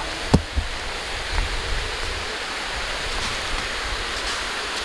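Waterfall rushing: the steady, even sound of falling water. A single brief knock comes about a third of a second in.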